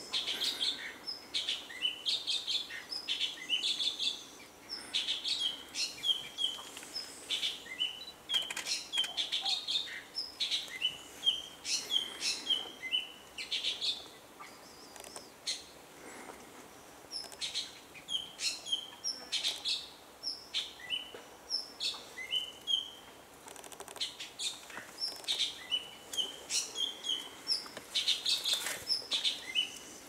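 Male orange-bellied leafbird singing: rapid, chattering runs of short, varied whistled notes, much of it mimicry of other birds' calls, broken by brief pauses while it feeds.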